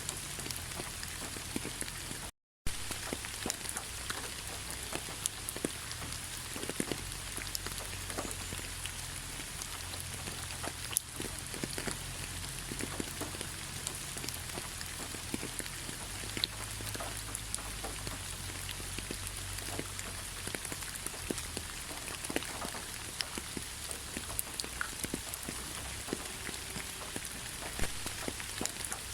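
Steady rain falling, with many individual drops ticking on a surface over the even hiss. The sound cuts out completely for a fraction of a second about two and a half seconds in.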